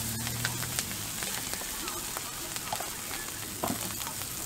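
Rice with egg, bean sprouts and scallions sizzling on a flat-top griddle as a steady hiss, with scattered sharp clicks.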